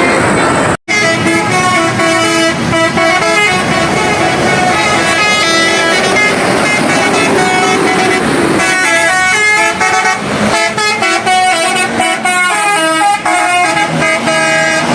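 Bus 'telolet' horn, a multi-trumpet musical air horn, playing a quick tune of short notes that jump in pitch, with several notes sounding together, over road traffic.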